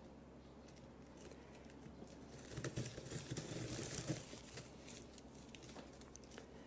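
Hands rustling and crinkling among the metal springs and plastic bubble-wrap backing on the underside of a couch while tying string around the springs. Faint small clicks run throughout, with a louder stretch of crinkling and knocks from about two and a half to four and a half seconds in.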